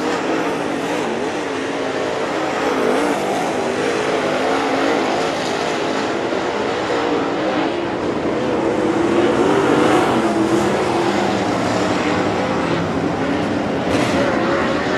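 Dirt late model race cars' V8 engines running hard around a dirt oval, their pitch wavering up and down as they go through the turns. A short sharp noise sounds near the end.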